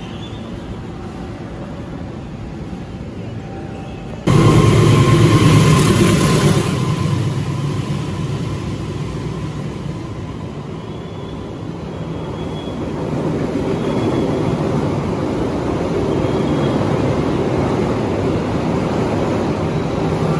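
Railway station ambience: a quieter, even background, then about four seconds in a sudden switch to the loud, steady rumble and hum of a train idling at the platform, loudest for the first two seconds after the change.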